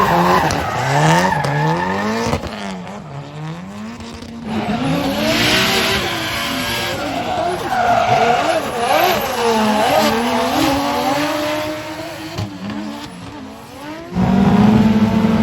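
Drift cars sliding under power: engines revving up and down with tyres squealing and skidding, two engines at different pitches audible together in the middle. The sound changes abruptly to a steadier engine note near the end.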